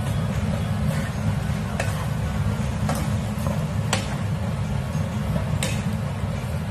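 Spatula striking the pan while fried rice is stir-fried, five sharp clicks roughly a second apart over a steady low rumble.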